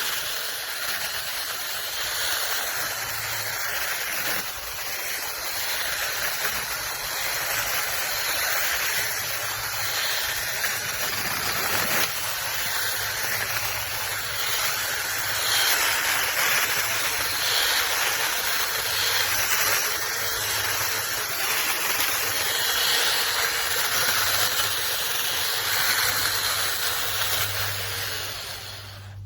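Cordless mini electric chainsaw running: a steady hissing whir that swells and eases, with a faint low motor hum coming and going.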